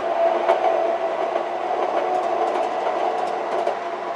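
An MTH Proto-Sound 3 O-gauge model streetcar running on a loop of three-rail track: a steady hum with a few light clicks.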